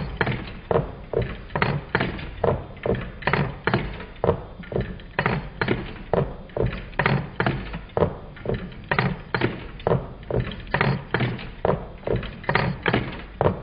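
Meccano-built twin-cylinder Stirling engine running, its displacers knocking as they land at each end of their travel: a steady rhythm of clunks, about two a second.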